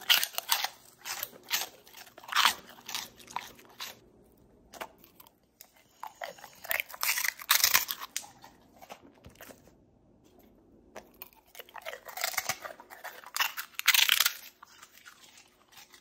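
Dogs crunching and chewing puffed 'puppy popcorn' treats, in three bouts of crunching with short quiet pauses between them.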